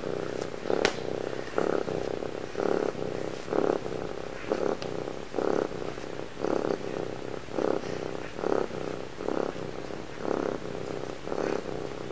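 Domestic cat purring close to the microphone, a steady rumble that swells louder about once a second with each breath.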